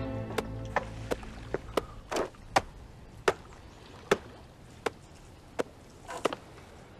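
About a dozen sharp knocks, like chopping or striking wood, close together at first and then spacing out to roughly one every three-quarters of a second. Background music fades out at the very start.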